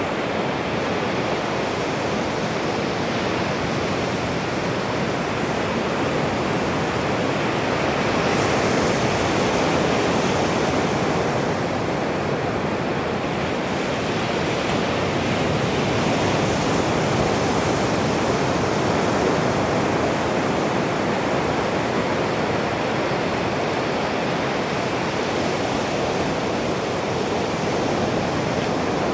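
Ocean surf breaking and washing up a sandy beach: a steady rush that swells a little about a third of the way in and again past the middle.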